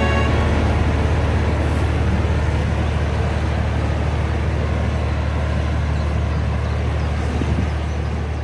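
A canal barge's diesel engine drones low and steady, under the rushing wash of its wake on the water, slowly fading as it moves away.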